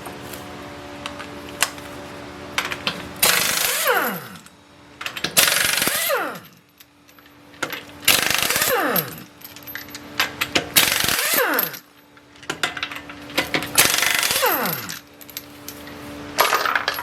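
Impact wrench run in six short hammering bursts, each ending with the motor winding down in falling pitch, as nuts are broken loose on the Lincoln Navigator.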